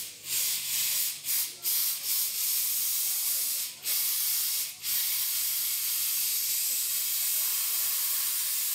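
Loud steady hissing, like a jet of air or spray, broken by short gaps about seven times in the first five seconds, then continuous. A faint steady low hum sits underneath.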